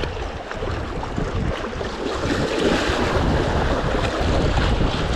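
Wind buffeting the microphone with a heavy rumble, over small waves washing against the shoreline rocks.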